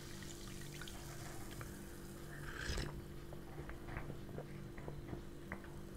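Cola pouring from a plastic bottle into a glass, then fizzing with faint scattered pops of bubbles, over a low steady hum.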